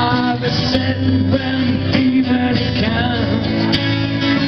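Live performance of an Italian pop song, led by a strummed acoustic guitar over a steady low accompaniment.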